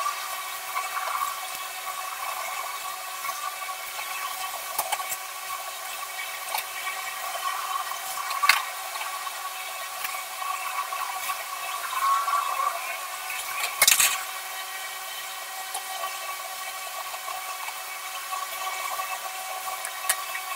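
Soft graphite pencil scratching and shading on drawing paper, a steady scratchy rasp. There is a sharp click partway through and a louder knock about two-thirds of the way in.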